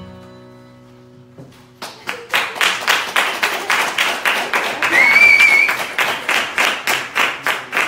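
The last chord of an acoustic guitar and harmonica dying away, then clapping from about two seconds in, fast and steady, with a short whistle of approval about five seconds in.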